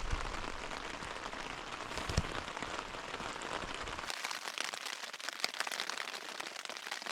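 Steady rain falling on the flysheet of an MSR Hubba NX one-person tent, heard from inside, with many separate drop hits and one louder hit about two seconds in.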